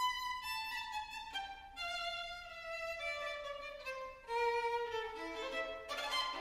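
Solo violin playing a classical melody with a large, echoing concert-hall reverb. The line steps down slowly in pitch, then rises again about two-thirds of the way through.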